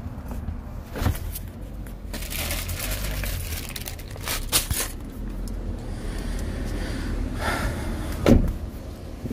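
Rustling and knocks from a phone being handled against a jacket, over a low steady rumble, with a sharper knock about a second in, another near the middle and the loudest near the end.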